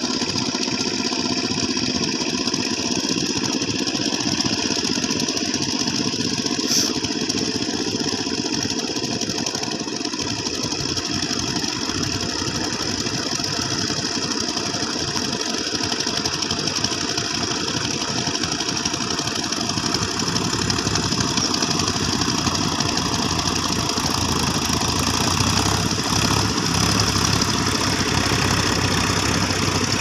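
Engine of a two-wheel power tiller working a flooded paddy field, running steadily without a break; its low end grows louder in the last third.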